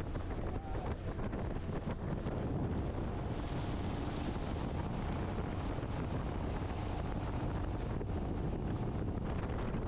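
Boat motor running steadily with the boat under way, with wind buffeting the microphone.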